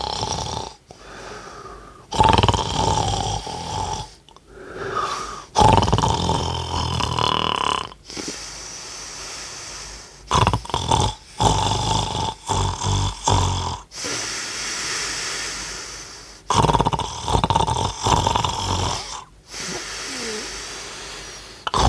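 A person snoring very loudly. Long, loud snores with a rapid low pulsing come every few seconds, alternating with quieter, wheezy breaths.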